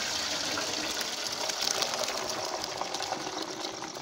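Hot water and boiled rice being poured from a pot into a perforated steel colander: the cooking water gushes and splashes through the holes. It grows fainter near the end as the pour eases.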